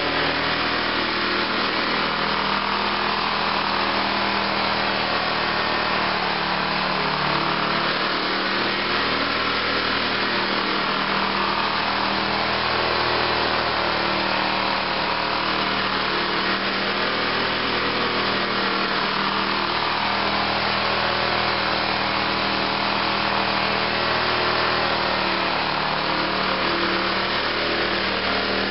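John Deere riding lawn tractor's engine running steadily as it drives across bare dirt, its pitch rising and falling slightly.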